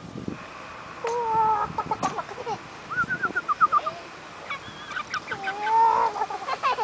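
A chicken calling: a long, drawn-out call about a second in, a quick run of short clucks around the middle, and another long call near the end.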